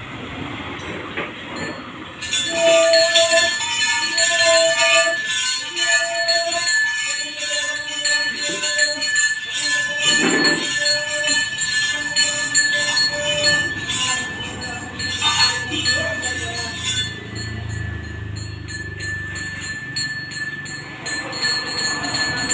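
Ritual music of a daiva nema: bells and cymbals jingling while a reed pipe plays short repeated notes, starting about two seconds in. The jingling stops about three-quarters of the way through, leaving a low hum.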